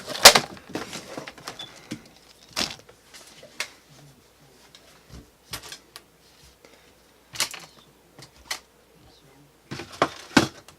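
Someone rummaging through things, with scattered knocks and clatters of objects being moved and handled. The loudest clatter comes right at the start and a cluster of knocks comes near the end.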